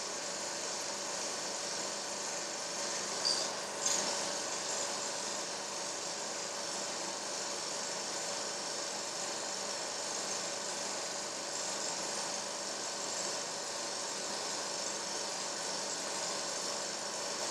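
Steady mechanical whirr of an old film projector running, with hiss and a constant hum; a short high tone and a click about three to four seconds in.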